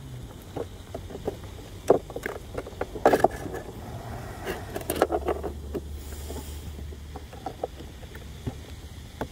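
Hands fitting a LiPo battery pack into an RC boat's plastic hull: scattered knocks, clicks and rustles of the pack, straps and connectors being handled, loudest about three seconds in.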